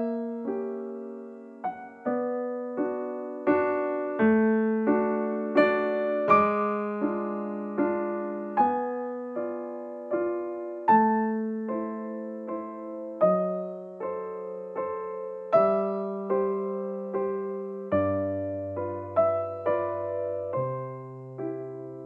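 Background music: a slow, gentle solo piano melody, single notes struck and left to fade over low bass notes, with a deeper bass note coming in near the end.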